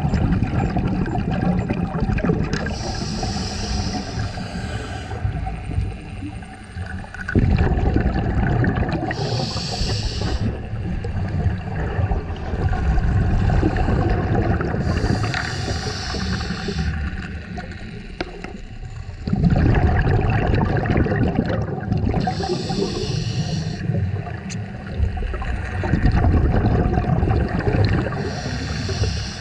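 Scuba regulator breathing underwater: a hissing inhale through the second stage about every six seconds, with exhaled bubbles gurgling and rumbling between the breaths.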